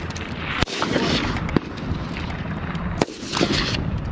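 Gunfire on a firing range: a few sharp, separate shots spaced about a second or more apart, the loudest about half a second in and again about three seconds in, over a steady background rush.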